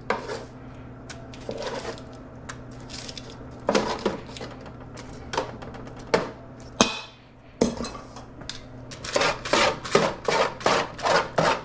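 Metal tongs clinking against a stainless steel bowl and a sheet pan as roasted chicken and potatoes are lifted across. Near the end, the tongs scrape rapidly back and forth over the pan bottom, about four strokes a second.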